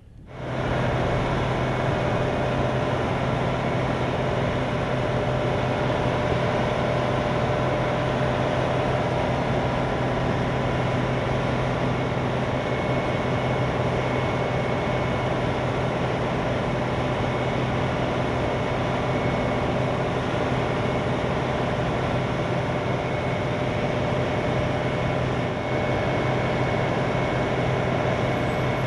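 Vermeer D500x500 Navigator horizontal directional drill running: a steady, loud diesel engine and hydraulic drone with a strong low hum and a constant higher whine. It comes in abruptly at the start and holds level throughout.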